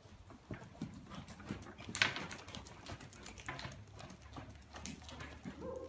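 A horse's hoofbeats on the sandy footing of an indoor arena as it trots past: a string of soft, uneven thuds, with one sharper click about two seconds in.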